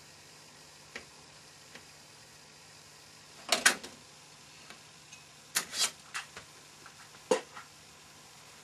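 Bang & Olufsen Beocenter 7700's hinged control-panel cover being lifted open: a couple of faint clicks, then two quick clusters of sharp clacks a few seconds in, and one more sharp click near the end.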